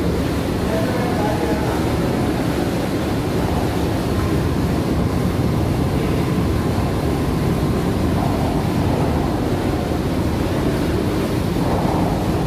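Steady, loud rumble of running plant machinery, with no clear rhythm or tone.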